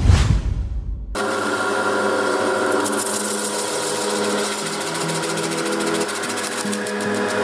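A short whoosh with a deep rumble, then about a second in a drill press starts running steadily. It spins a homemade circle cutter whose two pointed blades scrape a circular groove into a plastic sheet: a steady motor hum under a rasping cutting noise.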